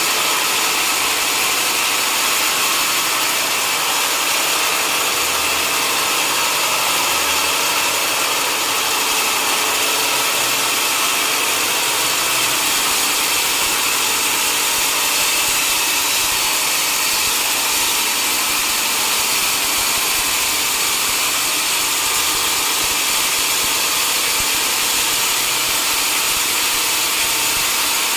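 Sawmill saw running steadily, a continuous loud machine noise with no pauses.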